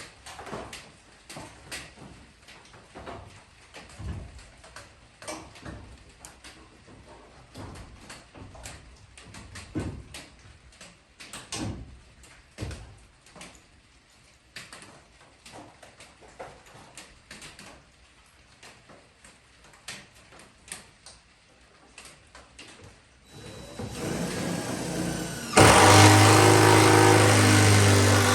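Irregular light knocks and clicks. Near the end a motor comes up and then runs loud and steady with a strong low hum.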